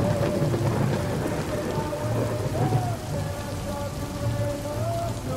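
Steady rain with a low rumble of thunder over the first few seconds. An old pop ballad's instrumental melody carries on underneath.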